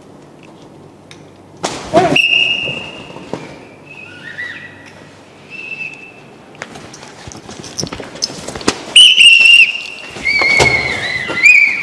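Several short, high whistle tones, some held steady and some wavering and bending in pitch. Sharp knocks and slaps fall between them.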